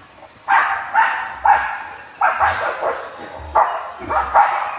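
A dog barking hard and repeatedly, about eight harsh barks in quick succession starting about half a second in. The dog is fighting a wild pig.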